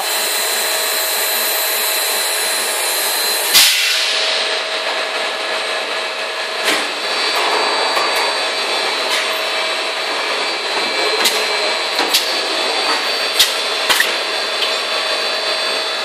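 Four-cavity extrusion blow moulding machine running: a loud, steady mechanical drone with a thin high tone. A high hiss cuts off after a sharp burst about four seconds in, and scattered sharp clicks and knocks follow.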